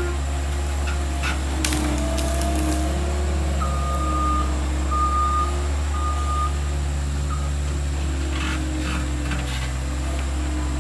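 Skid steer engine running steadily under load while its reversing alarm beeps three times in the middle, with a few scattered knocks and clanks.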